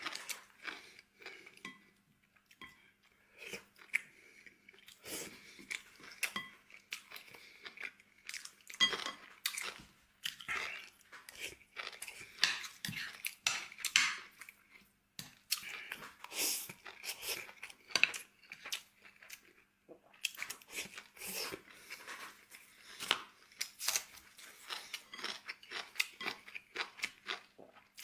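A person eating close to the microphone: chewing and crunching food in quick, irregular bites, with a light clink of utensils on a dish now and then.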